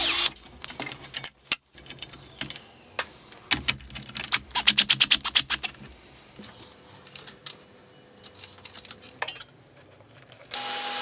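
Cordless drill-driver with a socket bit fastening nuts and screws on an aluminium angle bracket: metal clinks and clicks, with a fast regular run of clicks a few seconds in. Near the end a table saw starts up, a sudden loud whine and hiss.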